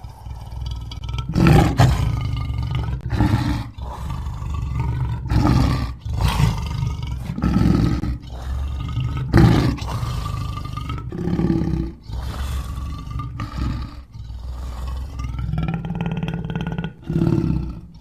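African lion roaring in a run of short, harsh calls, one every second or two, over a steady low rumble.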